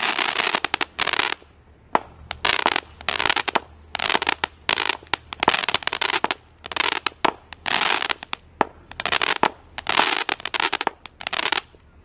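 Lazer Kittyz 25-shot consumer firework cake firing its aerial shots one after another, about two a second. Each shot is a sharp pop with a short noisy burst after it.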